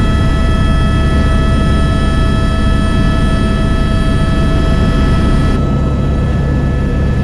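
Helicopter in flight heard from inside the cabin: a loud, steady drone with a high whine over it. The tone shifts slightly about five and a half seconds in, when the high whine fades.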